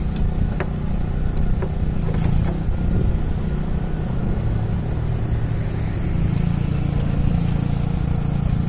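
Steady low engine hum, with a few faint metallic clicks as wrenches are fitted onto a bolt in the engine bay.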